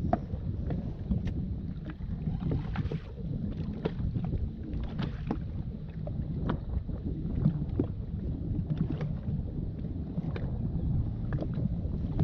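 Gusty wind buffeting the microphone as a steady low rumble, with choppy water slapping against the bass boat's hull in irregular knocks and splashes.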